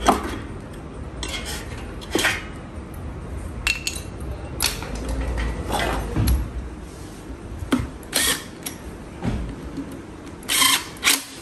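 Metal tools clinking and knocking on the hub of an electric scooter's wheel motor held in a steel press frame, in scattered single knocks and clicks. Near the end come two short, louder bursts.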